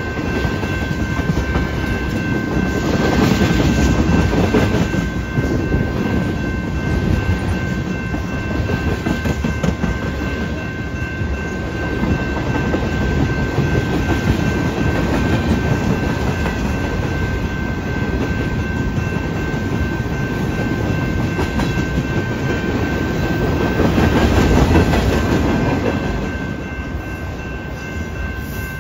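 Freight train cars (tank cars, a coil car and an autorack) rolling past, their steel wheels rumbling and clacking on the rails. The noise swells a few seconds in and again near the end as heavier cars go by.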